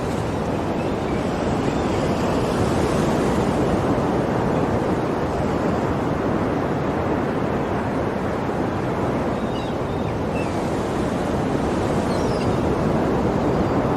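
Ocean surf: waves breaking and washing in, a steady rush of noise that swells gently now and then.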